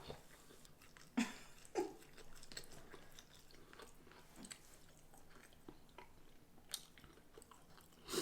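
A person quietly chewing fried chicken tenders, with a few short mouth clicks and smacks scattered through.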